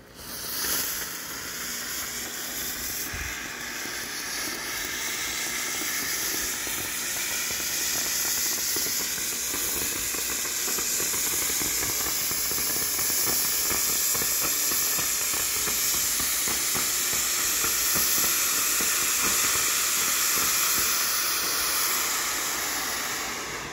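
A Vesuvius cone fountain firework burning: a loud, steady hiss of its spray of sparks, catching within the first second and starting to die down near the end.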